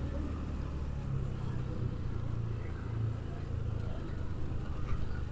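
Motorcycle engine running steadily at low speed as it rides along, with road and wind noise.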